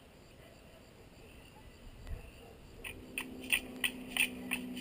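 Quiet for nearly three seconds, then an even rhythmic clicking, about three strikes a second, like a hand rattle or clapper, with a low held tone starting under it.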